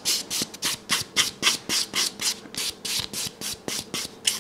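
White nail buffer block rubbed quickly back and forth over a filed gel nail, about four short scratchy strokes a second: buffing the shaped surface so the polish holds better.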